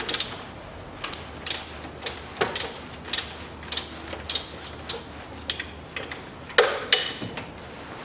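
Socket ratchet wrench clicking in short bursts, about two a second, as gearbox bolts are worked loose, with two louder metallic clacks near the end.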